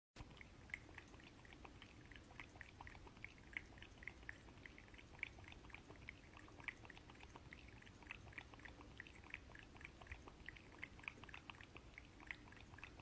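Cat lapping water from the mouth of a plastic water bottle: a steady run of faint, quick, wet clicks, about four a second.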